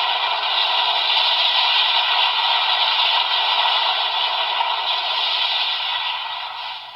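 Electronic sound effect from the Kamen Rider Geats PDX Laser Raise Riser transformation toy's small speaker: a long, steady rushing noise that begins to fade near the end.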